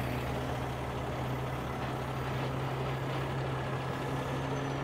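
Miller Industries Vulcan 950 rotator tow truck's diesel engine running steadily, powering the hydraulic winch as it takes up cable on a heavy load.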